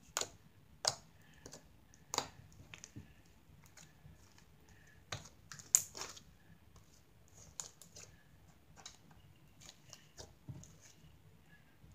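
Purple glitter slime being pressed and squished by hand on a tabletop, giving irregular small clicks and pops. The sharpest pop comes about six seconds in.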